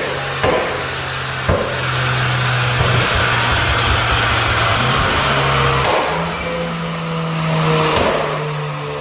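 Renault Clio 1.6 turbo Trophy's four-cylinder engine held at steady revs, stepping up about five to six seconds in and dropping back near the end. A few sharp exhaust pops from its Stage 1 crackle map break through the engine note.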